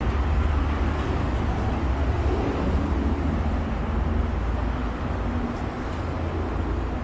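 Steady low rumble with a hiss, vehicle noise.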